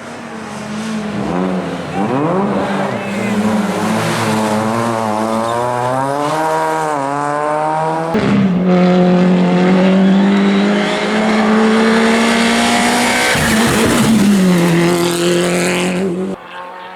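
Rally car engine at full throttle, revving up through the gears with a sharp gear change about halfway through, then held high and loud before the revs drop briefly near the end; the sound cuts off just before the end.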